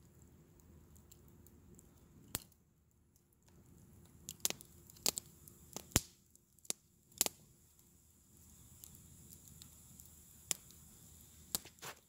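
A small knife cutting and peeling a vegetable held in the hand, giving scattered sharp, crisp clicks, some in quick clusters of two or three.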